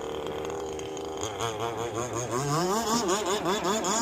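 Two-stroke gas engine of a Proboat Rockstar 48 RC boat running on the water, steady at low throttle at first, then its pitch rising and falling repeatedly from about a second in as the throttle is worked to bring the boat in slowly.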